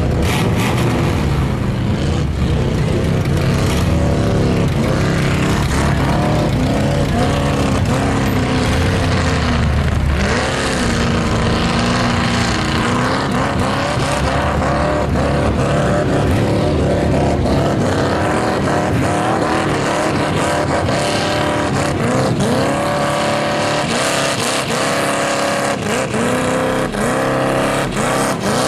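Mega mud buggy's engine revving hard, its pitch rising and falling over and over as the big tyres drive through deep mud.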